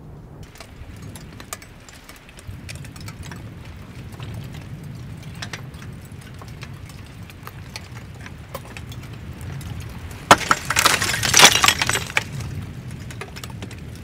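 Slowly moving lava flow whose cooling crust cracks and breaks apart, giving scattered glassy clinks and crackles over a steady low rumble. About ten seconds in, a dense, louder spell of crackling and shattering lasts a couple of seconds.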